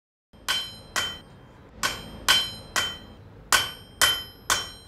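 Blacksmith's hammer striking an anvil, eight ringing metallic blows in an uneven rhythm of twos and threes, starting about half a second in.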